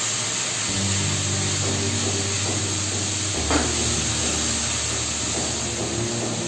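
Diced potatoes and onions frying in oil in a non-stick kadai, sizzling steadily as a silicone spatula stirs them, with a brief scrape about three and a half seconds in. Soft background music with held low notes plays underneath.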